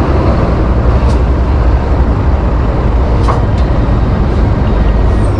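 A truck on the move: steady engine and road noise, with a few faint clicks.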